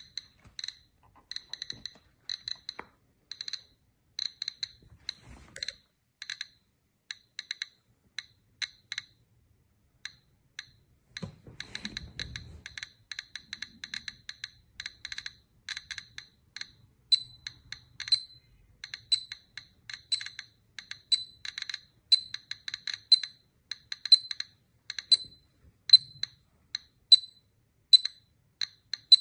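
Small hard objects clinking again and again, short bright ticks with the same ring each time, at an uneven pace of one to three a second and louder toward the end. A dull knock about twelve seconds in.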